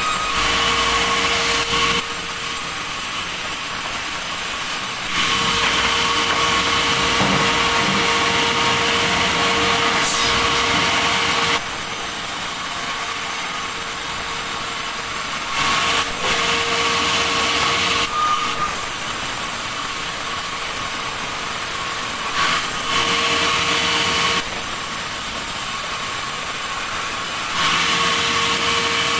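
Sawmill saw running and cutting through logs, a steady machine whine over a hiss that switches abruptly between louder and quieter stretches every few seconds.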